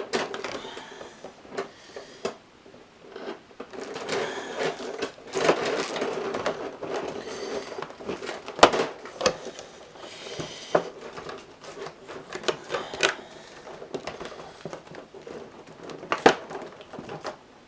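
Plastic packaging being handled and crinkled as statue parts are worked out of a tight-fitting tray, with irregular small clicks and a few sharp snaps, the loudest about halfway through and near the end.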